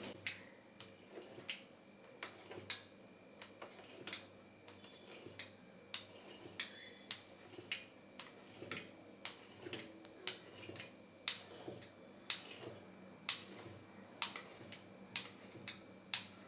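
Pizza cutter's steel wheel running strip after strip through thin rolled dough on a silicone mat, giving a string of light clicks, about two a second.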